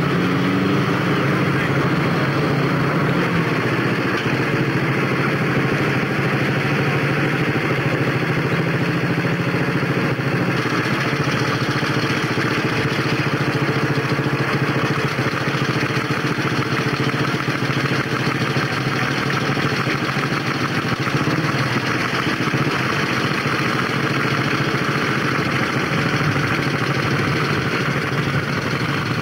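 Vintage motorcycle engine running, under a steady hiss across the whole sound.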